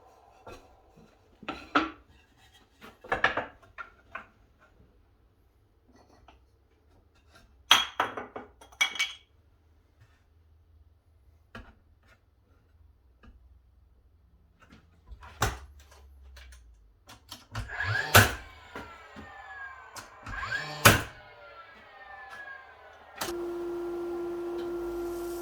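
Scattered knocks and clatters of tools and timber being handled in a workshop, some with a short metallic ring. A steady tone starts near the end.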